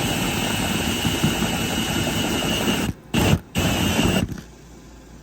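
A battery-powered motor runs with a steady whooshing noise and a high whine. It cuts out twice briefly about three seconds in, then stops after about four seconds, because its button was pressed by accident.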